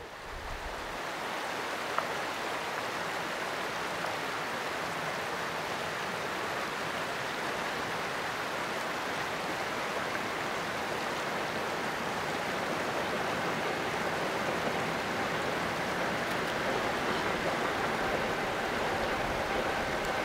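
Freight train of boxcars rolling along the rails behind a steam locomotive: a steady rushing rumble of wheels that grows slightly louder as it comes nearer, with faint thin squealing tones joining in over the last few seconds.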